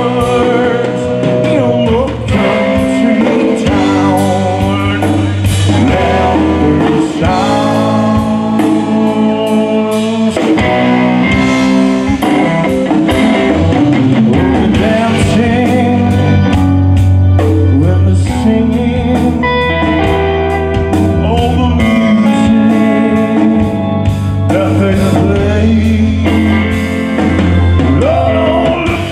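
Live blues-rock band playing loudly: a man singing lead over a drum kit and the rest of the band.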